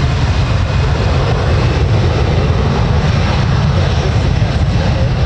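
Boeing 737's twin turbofan jet engines running at high power as the airliner rolls along the runway: a loud, steady rumble with a broad roar above it.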